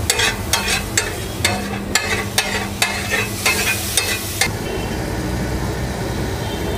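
Metal spatula scraping and tapping on a large flat iron tawa as masala for tawa pulao is stirred over the heat, about three strokes a second, over a steady sizzle. About four and a half seconds in the strokes stop and the frying hiss goes on alone.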